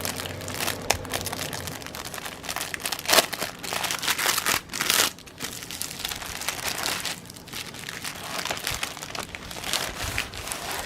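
Packaging crinkling and rustling in irregular bursts as a craft kit is handled and pulled out of it, with a louder crackle about five seconds in.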